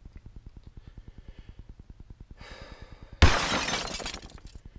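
Water suddenly rushing and spraying out of a newly installed RV kitchen faucet as it is turned on for a first test, loud at first and fading over about a second. A fast, even pulsing runs underneath throughout.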